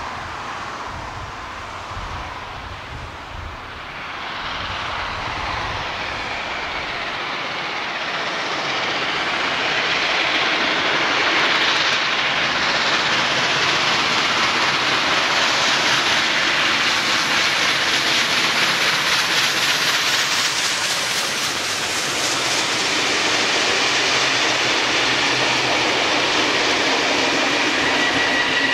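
Beyer-Garratt AD60 steam locomotive 6029 working hard as it approaches with a train, its exhaust and running noise growing from faint to loud over the first ten seconds or so, then staying loud.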